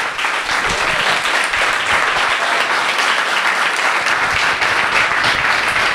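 Audience of a few dozen people applauding in a small room, dense steady clapping that starts at once and holds at full strength.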